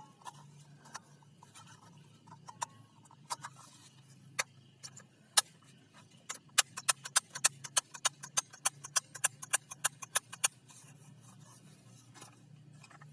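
Sharp plastic clicks from a toy soft-bullet gun being handled and worked. A few scattered clicks come first, one of them loud, then a fast regular run of about four clicks a second for about four seconds, over a faint low hum.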